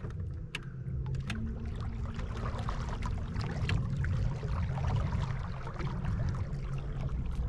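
Small fishing boat moving slowly: a steady low motor hum under a rumble, with water splashing and ticking against the hull.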